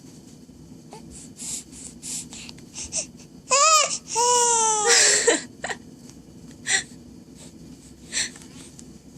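Three-month-old baby giving two short cries about three and a half seconds in, the second sliding down in pitch. Short breathy snuffles come before and after them.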